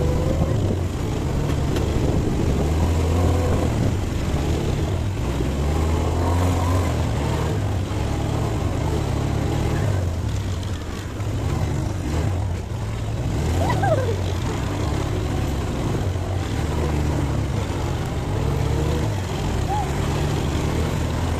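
ATV (quad bike) engines running on a dirt trail, a steady low engine drone that swells and eases with the throttle.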